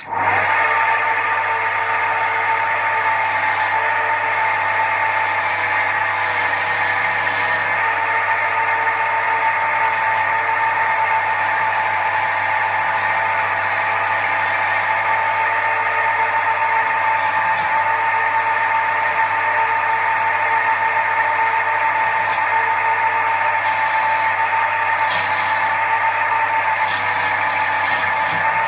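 Record wood lathe running steadily at speed with a constant motor whine and hum, cutting in abruptly at the start.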